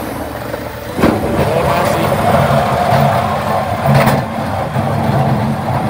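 The Massey Ferguson 1840M tractor's 40-horsepower turbocharged diesel engine is running. It gets louder about a second in as it works. There are two brief knocks, about a second and about four seconds in.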